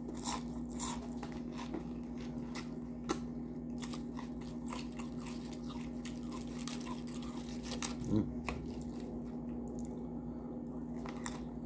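Close-up chewing and biting of Doritos tortilla chips loaded with taco toppings, with sharp crunches scattered irregularly, and chips crackling as fingers dig into the pile.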